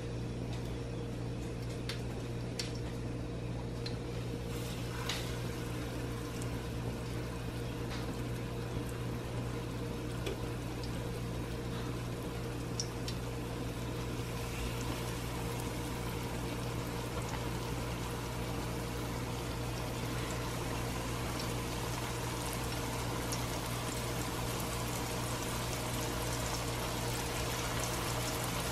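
Hot oil sizzling in a stainless steel pan as folded corn-tortilla potato tacos are laid in and fry, the sizzle growing fuller from about halfway through. A few light clicks in the first half, over a steady low hum.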